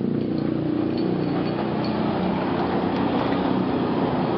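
Motorcycle tricycle's engine running steadily, with a noisy rush over it.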